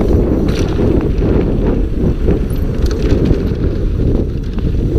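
Wind buffeting the camera microphone as a Scott Gambler downhill mountain bike rolls fast down a dusty gravel track. Tyres crunch on the dirt and stones, and the chain and frame rattle in scattered short clicks and knocks.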